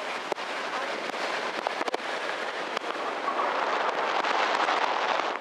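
Rushing of wind and water on the deck of a moving sightseeing boat, full of small crackles, growing louder about three and a half seconds in.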